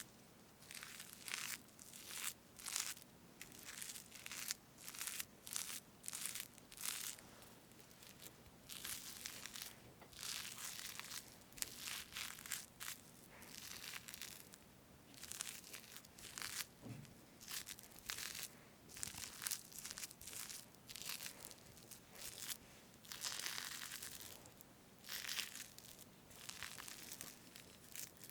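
Close-miked soft, squishy strokes of a utensil cutting through fresh whipped cream on a strawberry sponge cake. The strokes are irregular, about one or two a second, with a few longer drawn-out slices.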